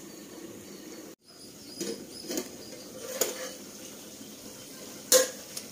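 A few light metallic clinks from a metal cooking pot and its lid being handled, with a sharper clink about five seconds in, over a low steady background noise.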